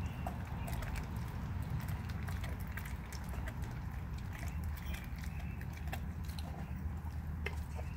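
German Shepherd chewing on a piece of raw chicken, with scattered crunches and clicks from its jaws. A steady low rumble runs underneath.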